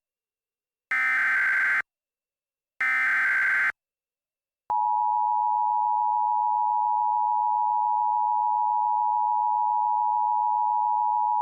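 Emergency Alert System SAME header: two short bursts of buzzing data warble about a second apart, the last two of the three-burst header. About a second later the EAS two-tone attention signal starts, a steady dual tone that holds, signalling an emergency alert message to follow.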